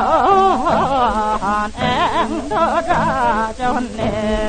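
Seodo minyo, Korean folk song of the western provinces, sung with a strongly wavering, bending voice, played from an old Victor 78 rpm gramophone record.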